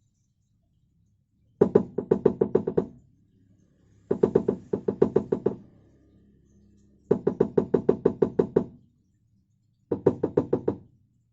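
Toyota Avanza's rear muffler knocking in rapid 'tuk tuk tuk' runs, four bursts of about a second each at roughly seven knocks a second. The exhaust is swinging on a stretched, worn rear muffler support rubber.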